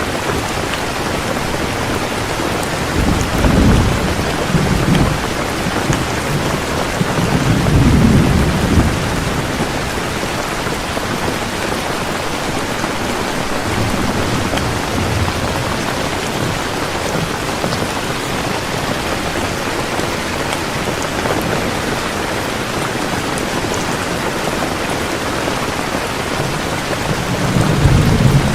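Heavy rain falling steadily, with low rolling rumbles of thunder swelling up a few seconds in, again around eight seconds in, and near the end.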